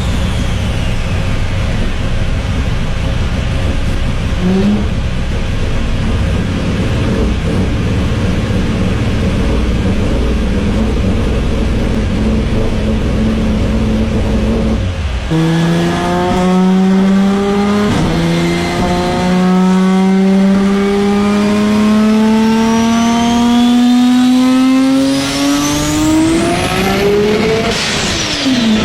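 Toyota Supra Mk4's turbocharged 2JZ straight-six. For the first half it is a steady engine drone under a loud rush of road and wind noise. It then pulls hard for a long acceleration, the engine note climbing steadily with a turbo whistle rising over it. Near the end the car goes past and the pitch drops sharply.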